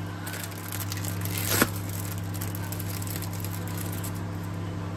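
Plastic film crinkling and crackling as individually wrapped cheese slices are peeled out of their wrappers, with one sharper crackle about one and a half seconds in. A steady low electrical hum runs underneath.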